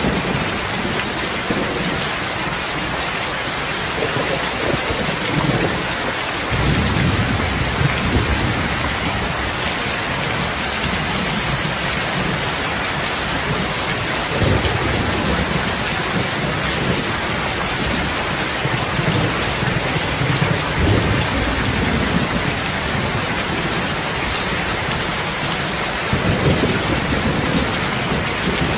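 Heavy rain falling steadily, with low rolls of thunder swelling and fading every few seconds.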